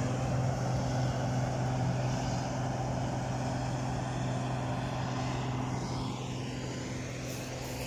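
Combine harvester at work harvesting corn: a steady engine and machinery hum that eases off slightly near the end.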